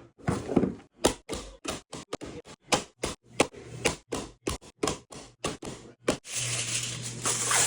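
A quick, irregular run of sharp knocks and taps, about three or four a second, followed near the end by about a second and a half of loud steady hiss with a low hum that cuts off suddenly.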